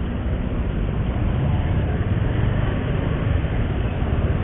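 Steady engine and traffic noise from riding a motorcycle through a heavy traffic jam, as picked up by an action camera's microphone.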